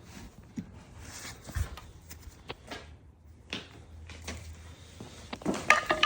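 Tools clicking, scraping and clinking on the metal retaining pin of a BMW shifter arm as the pin is worked out, with the sharpest, ringing metallic clink near the end.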